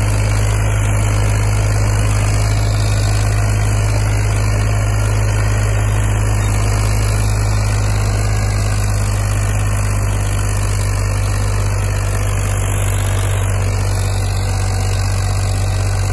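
Powertrac Euro 50 tractor's three-cylinder diesel engine running steadily under load while pulling a disc harrow, a deep, even engine note with no change in speed.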